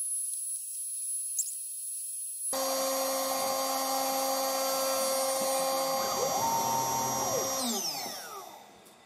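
Small hobby CNC machine's spindle milling a fiberglass sheet with a tapered cutting bit. A high hiss with a thin high whine gives way, after about two and a half seconds, to a louder steady multi-tone whine over cutting noise, with one tone rising and falling. Near the end the pitches fall and it fades as the spindle spins down.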